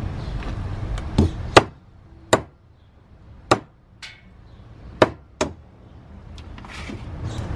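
Meat cleaver chopping a raw chicken on a wooden log chopping block: about six sharp, irregularly spaced blows.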